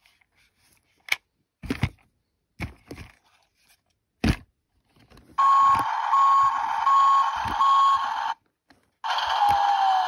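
A few knocks of hard plastic being handled, then the Tonka Funrise Toughest Minis bulldozer's electronic sound effect from its small built-in speaker: a hissy machine noise with four evenly spaced backup-alarm beeps, which stops and starts again about nine seconds in with a wavering tone.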